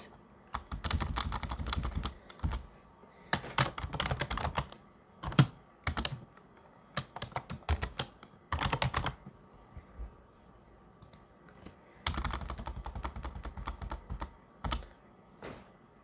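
Computer keyboard typing in several short bursts of rapid key clicks, with pauses between them.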